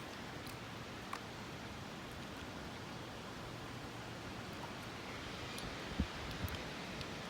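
Steady low hiss of background noise, with a few faint clicks and one soft knock about six seconds in.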